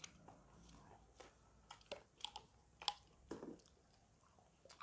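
Faint, scattered clicks and crackles of people eating fried chicken and handling food at the table, a few sharper ticks about two to three and a half seconds in.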